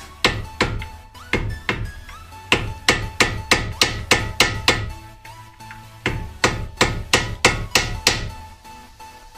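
Repeated hammer blows on metal at a car's front wheel hub, about three a second. They come in two runs, with a short pause around five seconds in.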